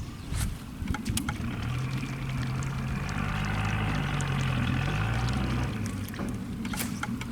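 A small boat's motor running with a steady low hum that shifts a little in pitch, water rushing beside the hull, and a few sharp clicks near the start and near the end.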